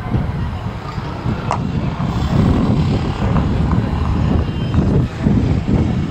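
A loud low rumble that swells about two seconds in, with a single sharp crack about a second and a half in.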